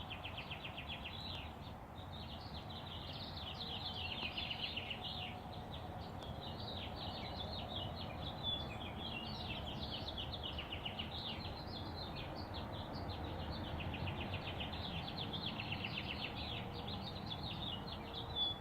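Dawn chorus of many songbirds singing at once: overlapping warbles and rapid trills of quickly repeated notes, over a steady low background rumble.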